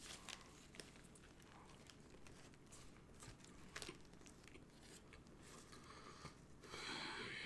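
A person biting into and chewing a Whopper burger close to the microphone: faint soft crunches and mouth clicks, scattered and quiet. Near the end a louder rustle comes in.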